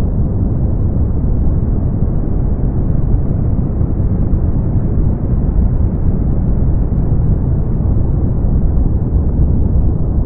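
Brown noise: a steady, deep rushing rumble with no high hiss and no change in level.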